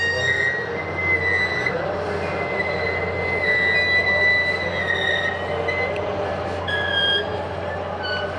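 Railcars of a passing freight train rolling by, their steel wheels squealing against the rails in long, steady, high-pitched tones over a continuous rumble.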